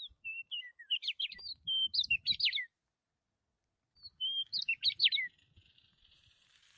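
A bird singing in two bursts of quick, high chirps, whistles and short trills, the second burst starting about four seconds in.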